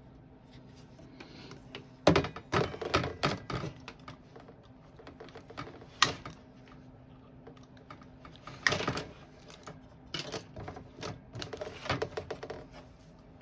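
Irregular clicks and taps from hands working on an aluminum window frame and its parts during gasket fitting, in several short clusters with one sharp click in the middle.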